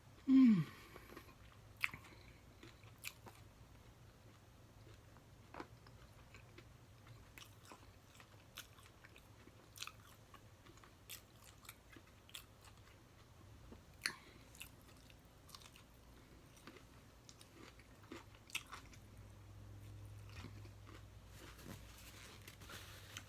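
A person eating close to the microphone: chewing and biting food, with scattered crunches and clicks, after a short "mm" of enjoyment at the start. A low steady hum runs underneath.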